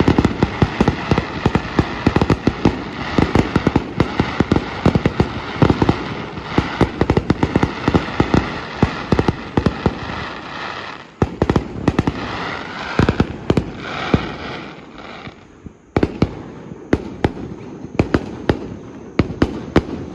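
Fireworks display: dense, rapid volleys of bursting shells over a steady crackle, easing off briefly a little past halfway, then the bangs pick up again.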